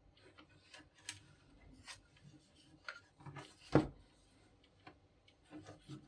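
Irregular small clicks, taps and rubbing from hands working on the laminator's parts, with one louder knock just under four seconds in.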